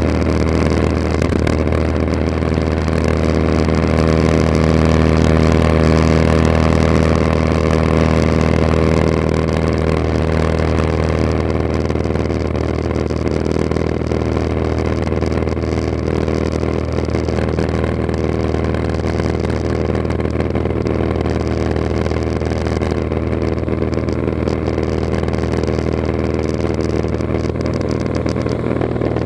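Cessna 182RG's six-cylinder Lycoming engine and propeller droning steadily, heard from inside the cabin during the climb after takeoff. The drone eases a little about nine seconds in, then holds even.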